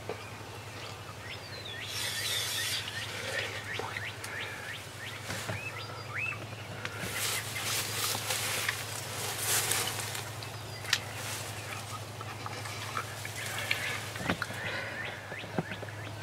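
Songbirds chirping and calling in the background over a low steady hum, with a few faint clicks and spells of rustling hiss, the longest from about seven to ten seconds in.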